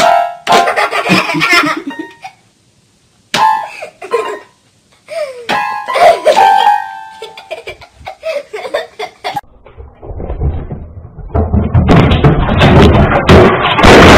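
Toy electronic keyboard sounding short bursts of beeping notes as a pet paws at its keys. In the last few seconds a loud, noisy din with a low rumble takes over.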